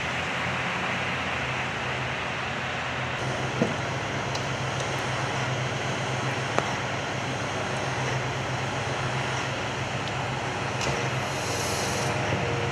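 Steady low hum of idling fire engines, with a couple of faint clicks a few seconds in.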